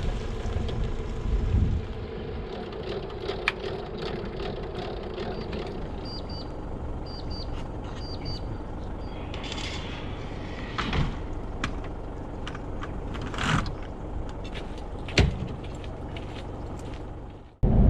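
Steady road and engine noise heard inside a moving vehicle's cab, with a few sharp clicks and knocks over it.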